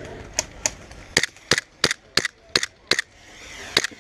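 Airsoft gas blowback pistol firing single shots, each a sharp snap: about nine shots at an uneven pace, in quick pairs and singles.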